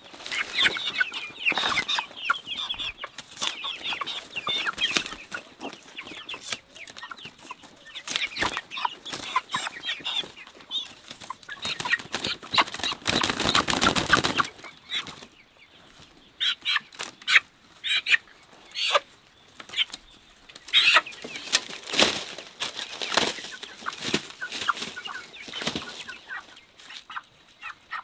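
Hens clucking and squawking as they are handled, with wing flapping and scattered clicks and rustles. The longest, loudest flurry of flapping comes about halfway through.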